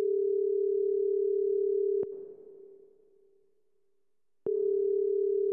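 Telephone ringback tone heard down the line, slowed down and drenched in reverb: a steady low tone rings for about two seconds, cuts off with a click and echoes away. A second ring starts about four and a half seconds in.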